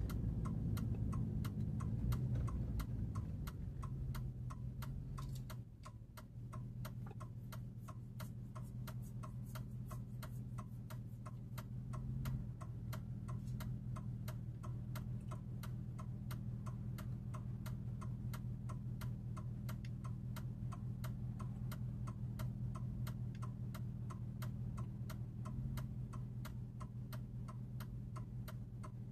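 Turn-signal clicker ticking steadily inside the cab of a 2004 Chevy Avalanche Z71, about three clicks a second, over the low hum of the truck's V8. The engine sound drops about five seconds in as the truck comes to a stop, then it idles steadily.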